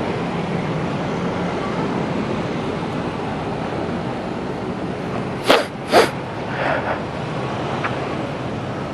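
Steady running noise of a motorcycle being ridden in traffic, with two short sharp bursts about five and a half and six seconds in.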